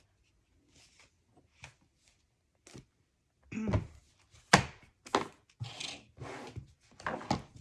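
Paper and cardstock album pieces being handled: a few light ticks, then from about halfway a run of rustles and knocks against the table, with one sharp tap.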